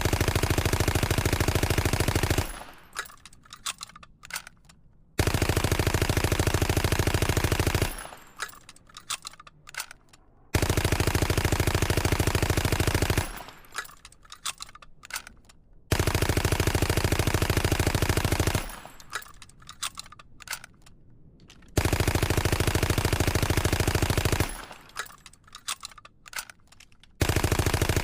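Sound effect of a Tokyo Arsenal submachine gun firing long fully automatic bursts of about two and a half seconds each, five in all with another starting near the end. Between bursts come a few scattered sharp clicks and clatters.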